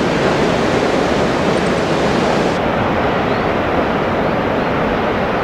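Rough sea surf breaking, a steady wash of wave noise. The highest hiss drops away a little over two and a half seconds in.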